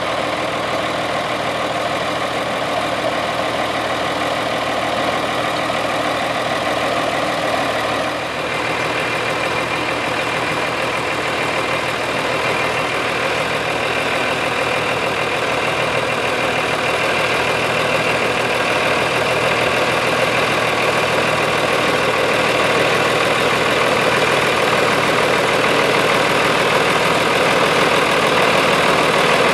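Ford 9600 tractor's 6.6-litre six-cylinder diesel engine running steadily at low revs as it pulls a trailer at walking pace, growing gradually louder as the tractor draws nearer.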